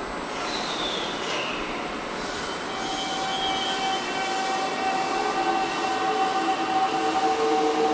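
Toei 5300 series subway train's GTO-thyristor VVVF inverter whining as the train starts off. Several steady tones come in about two and a half seconds in and grow louder, beginning to rise in pitch near the end. A short falling whistle is heard just before, about half a second in.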